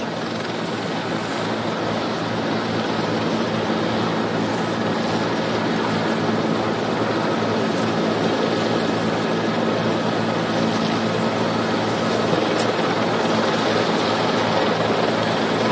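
Steady engine and rotor noise of a news helicopter heard from inside its cabin: a constant low hum of several tones under a rushing hiss, growing a little louder over the first few seconds.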